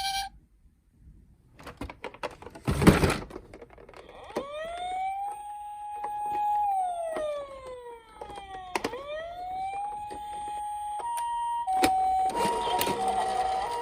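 Toy emergency-vehicle minicars' electronic sirens. After a few clicks and a loud knock, a siren wails up, holds, slides down and wails up again, then a two-tone high-low siren starts near the end.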